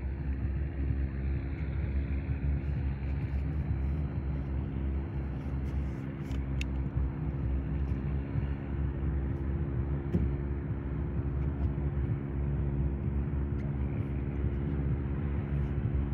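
An engine running at a steady speed: a low, even drone that holds the same pitch throughout.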